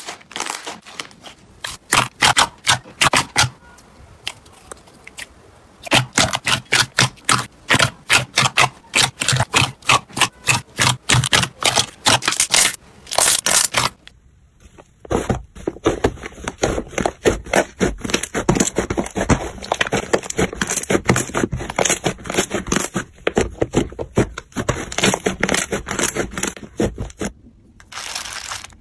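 Slime being pressed and worked by hand, giving rapid runs of crackling pops and clicks, with a short lull a few seconds in and a change to another batch of slime about halfway through.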